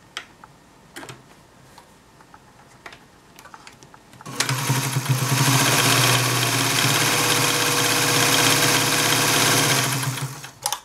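A few faint clicks, then about four seconds in the Adler 189A sewing machine starts and runs steadily, its motor humming and the needle stitching in a fast even rhythm, for about six seconds before slowing to a stop, with one more click near the end.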